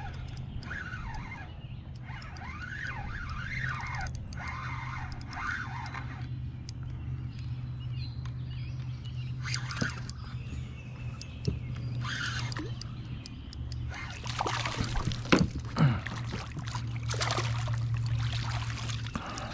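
A hooked bass splashing and thrashing at the surface beside a kayak as it is reeled in. The splashes come in scattered bursts that grow busier over the last five seconds, the loudest near the end, over a steady low hum.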